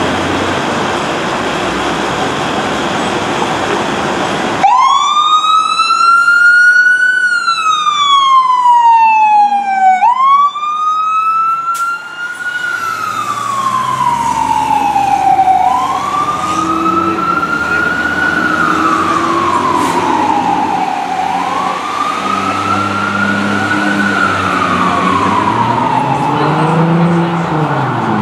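Fire engine siren on a 2007 Spartan Gladiator/Smeal pumper responding code 3. It starts abruptly a few seconds in, over steady traffic noise, as a slow wail rising and falling every five to six seconds. The truck's engine is heard running underneath as it drives past.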